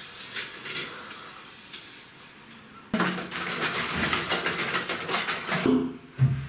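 Water running in a bathroom, a steady rush that starts suddenly about three seconds in and dies away near the end.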